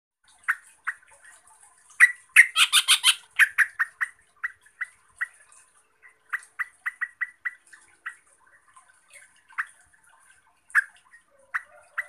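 Yellow-vented bulbul (Pycnonotus goiavier) calling: a string of short, sharp chip notes, broken by a loud, rapid chattering burst about two seconds in.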